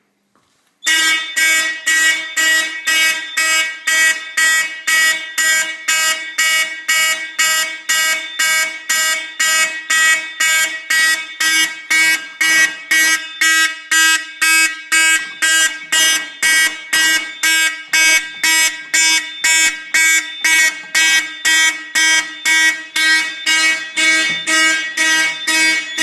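Simplex 4051 fire alarm horn sounding the march-time code, very loud, pulsing on and off about twice a second from about a second in.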